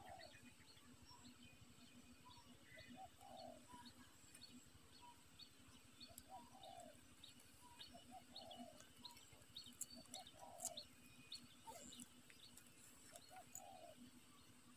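Spotted dove cooing faintly, about five times: each phrase is a few short notes and then a longer one. Faint high chirps sound behind it.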